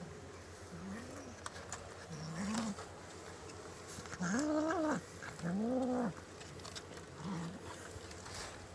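Hungry domestic cats meowing for food: about five meows, each rising then falling in pitch, the two in the middle loudest and the last one short.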